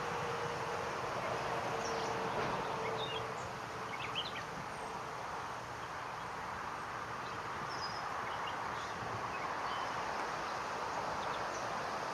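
Steady outdoor background hiss with short, high chirps scattered through it.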